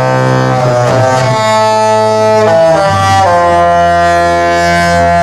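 The Disney Fantasy cruise ship's horn playing a Disney tune: loud, long horn notes with several tones sounding together, changing pitch a few times, the last note held.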